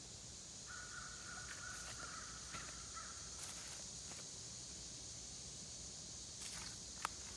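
Faint creekside ambience: a steady high-pitched drone runs throughout, and a bird call comes in about a second in and lasts a couple of seconds.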